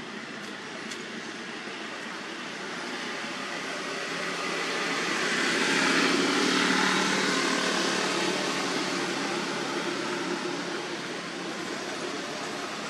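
A vehicle passing by: a broad rushing engine noise swells to its loudest about six seconds in, then slowly fades.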